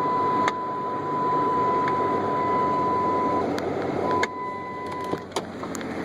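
A 1997 Jeep's engine idling, with a steady high-pitched warning tone that cuts out about halfway through and returns briefly. Several sharp clicks and knocks, the loudest a little past halfway, as the hood is opened.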